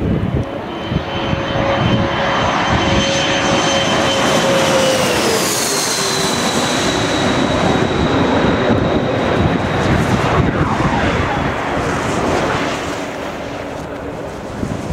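Bombardier CRJ-100 regional jet's twin turbofan engines passing low overhead on landing approach. A steady whine over a broad rush of air drops in pitch about five seconds in as the jet goes past. An unusual whistling rush of air cut by the airframe follows, and the noise eases off near the end.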